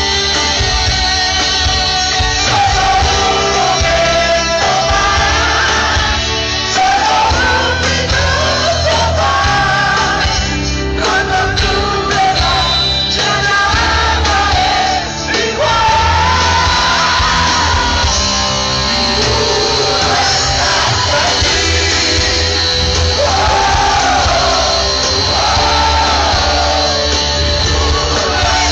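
Heavy metal band playing live, a lead vocal singing over electric guitars, bass and drums, loud and heavy in the bass as heard from the audience in a large hall.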